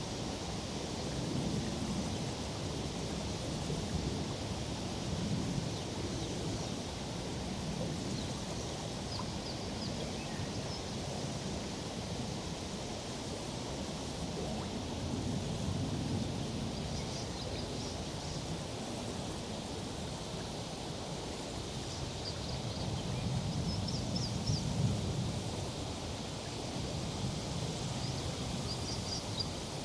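Tree foliage rustling in a summer breeze, the gusts swelling and fading every few seconds, with faint high chirps now and then.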